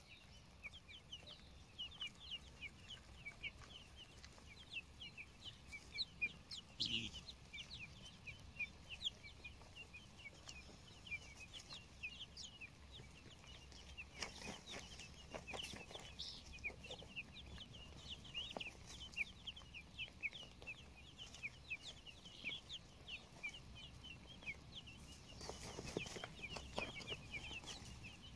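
Helmeted guineafowl keets peeping nonstop as they forage, a dense stream of short, high, down-slurred cheeps, several a second. A few clicks and rustles come about halfway through and again near the end.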